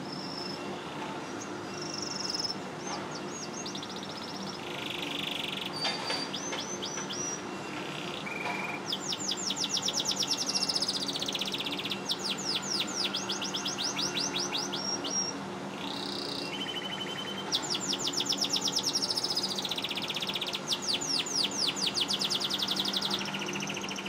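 Domestic canary singing: a few scattered short whistled notes, then two long runs of fast trills, the first about nine seconds in and the second about seventeen seconds in. A low steady hum runs underneath.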